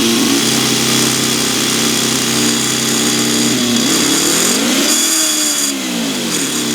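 Toyan FS-B400 miniature four-cylinder boxer model engine running steadily, then revved up once and let back down a few seconds in.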